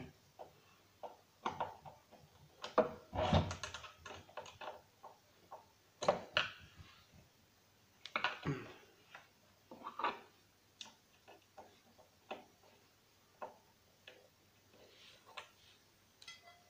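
Irregular clicks and knocks of a screwdriver and screws being worked out of the rubber feet on a turntable's wooden base, with a cluster of louder knocks about three seconds in.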